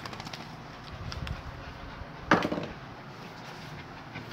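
Small dogs scuffling on a bed around a fabric bag: light clicks and rustles, with one sharper knock a little over two seconds in.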